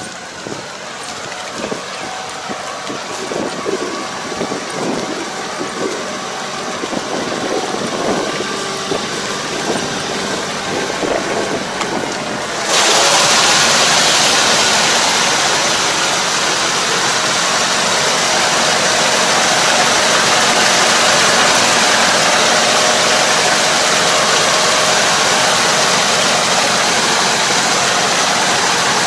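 Tractor engine running as it pulls a Kobashi drive harrow puddling a flooded rice paddy, growing louder as it approaches. About halfway through the sound jumps suddenly to a loud, steady rush of the engine and the harrow churning muddy water close at hand.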